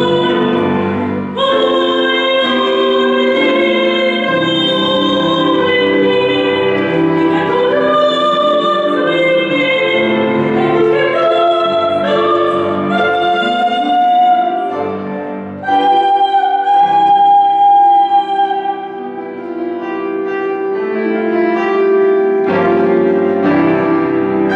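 A woman singing in a classical, operatic style over instrumental accompaniment, holding a long high note about two-thirds of the way through.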